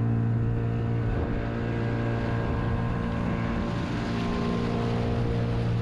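Outboard motor of a small open boat running at steady cruising speed, one even hum that holds its pitch, with water rushing past the hull.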